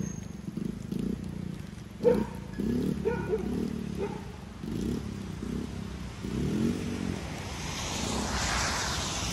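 Honda ATC110 three-wheeler's small single-cylinder four-stroke engine being ridden, revving up and falling back again and again in short bursts. A rushing hiss rises near the end.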